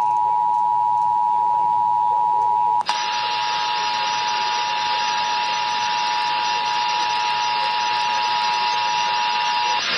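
Emergency Alert System attention tone from a NOAA Weather Radio broadcast: a steady, two-pitch electronic tone. About three seconds in there is a click, and radio static hiss joins the tone from then on. The tone cuts off just before the end.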